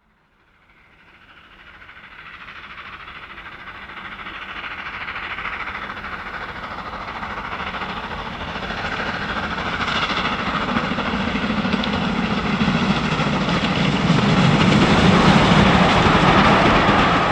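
Steam train approaching from a distance, its sound fading in from silence and growing steadily louder.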